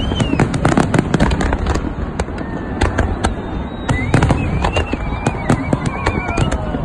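Fireworks display: a rapid string of sharp bangs and crackles from bursting aerial shells, densest at the start and again about four seconds in, with a wavering whistle through the second half.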